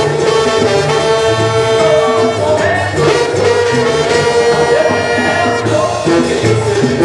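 Brass band music, with trumpets and trombones holding long notes over a bouncing bass line.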